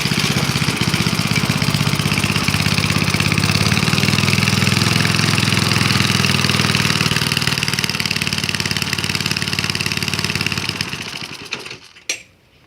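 Old four-stroke lawnmower engine running on biogas fed to its carburettor, a steady even beat. Near the end it fades away and stops, followed by a couple of light knocks.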